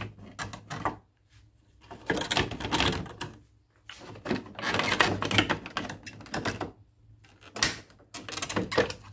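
Plastic handlebar cover of a Honda Scoopy-i scooter being worked loose by hand, its clips and panel clicking and rattling in rapid clusters, about four spells with short pauses between them.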